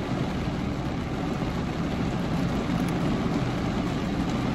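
Steady low hum and hiss inside a car's cabin, the sound of a car sitting with its engine idling.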